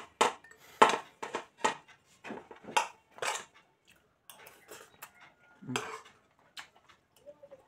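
A metal spoon scrapes and clinks against a plate as rice is scooped up. A quick run of clinks in the first few seconds gives way to sparser taps.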